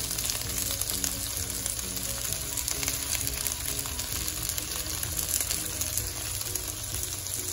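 Boneless chicken thigh pieces sizzling steadily in hot vegetable oil in a nonstick frying pan, with faint background music.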